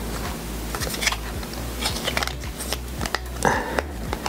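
Light clicks and taps of hard plastic action-figure parts being handled, as translucent plastic spell-effect discs are fitted onto the figure's hands, over a steady low hum.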